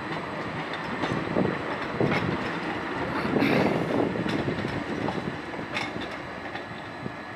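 Low-floor city tram running across station tracks, its wheels clacking now and then over rail joints and points. A faint steady high whine sits over the running noise, which peaks about halfway through and then grows fainter as the tram pulls away.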